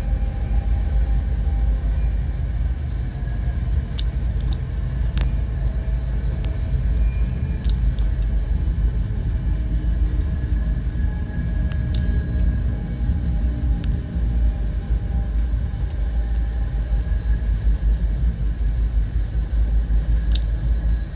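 Passenger train running on the rails, heard from inside the car: a steady low rumble with a few sharp clicks and rattles scattered through it.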